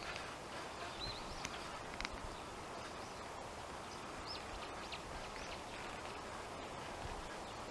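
Scattered short, high chirps of small wild birds over a steady outdoor background hiss.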